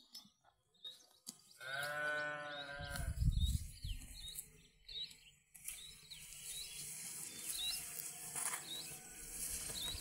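A Balami sheep bleats once, a call about a second and a half long. Rustling in the grass follows, with short high chirps repeating about twice a second.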